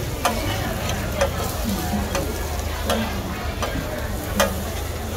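Metal spatulas scraping and clinking on a large flat frying pan as pad thai noodles are stir-fried, over a steady sizzle of frying. Several sharp clinks stand out, about one every second or so.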